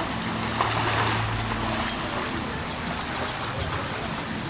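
Steady rushing and splashing of swimming-pool water, with a faint low hum underneath.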